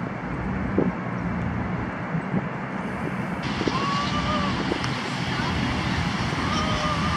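Outdoor wind noise rushing steadily over the microphone, with faint, distant voices in the background after a cut about three and a half seconds in.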